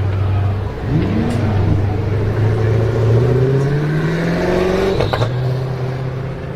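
High-performance car engine and exhaust: a quick rev blip about a second in, then accelerating with rising pitch for about three seconds, cut off by a sharp crack and drop in pitch at a gear change, then pulling steadily.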